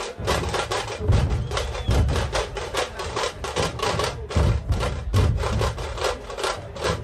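Drums beating a fast rhythm: rapid sharp stick strokes, several a second, over deep drum thumps about once a second.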